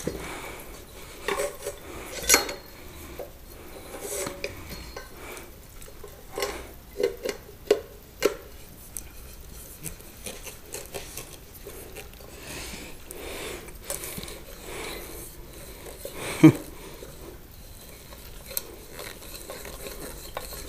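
Metal floor-lamp parts clinking and scraping as the pole and collar are screwed into the metal base, with scattered clicks and a sharp knock about three-quarters of the way through. The threads grind as they turn, which the assembler fears means they are stripping.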